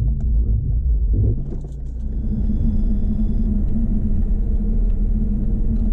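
BMW Z4 driving at test-track speed: a steady low engine and road rumble heard from on board. About two seconds in, a faint high steady tone sounds for roughly a second and a half.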